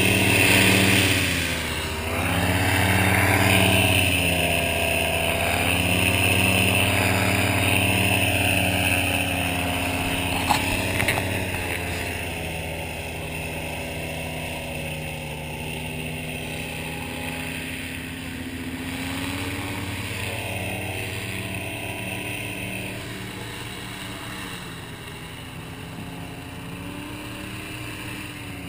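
Airboat engine and propeller running, the pitch rising and falling as the throttle changes through the first dozen seconds, then settling to a steadier, lower run.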